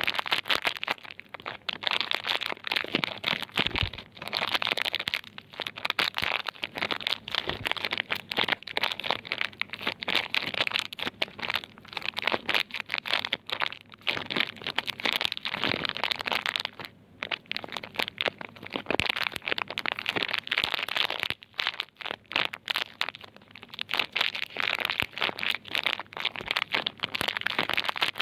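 Soap wrapping crinkling and crackling as it is handled: a dense, irregular run of small crackles with a few brief pauses.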